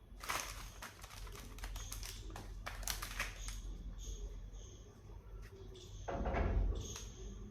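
Chocolate packaging being handled and opened: a quick run of crisp crinkles and clicks, softer rustling, then a louder crackle of wrapper about six seconds in.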